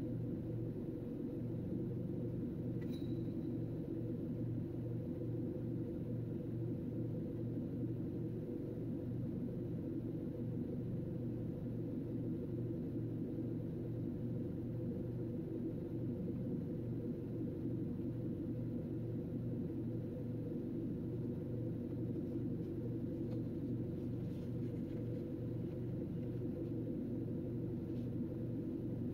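Car engine idling, heard from inside the car as a steady low hum, with a faint click about three seconds in.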